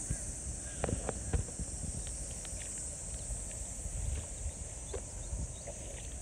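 Wet mud squelching and splashing in irregular splats as a person shifts their legs and presses a hand into a muddy puddle, the loudest about a second in. A steady high-pitched insect drone runs underneath.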